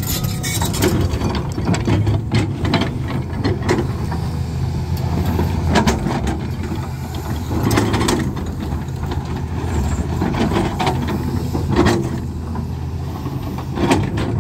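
Hydraulic excavator's diesel engine running steadily while grading, with a few short knocks and clanks from the machine.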